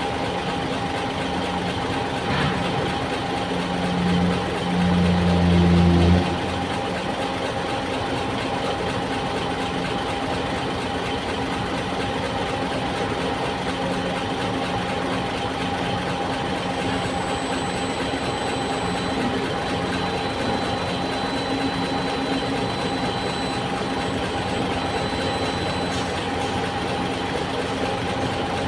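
Heavy diesel engine idling steadily, with a constant hum and a faint high whine. A louder low tone sounds twice between about four and six seconds in.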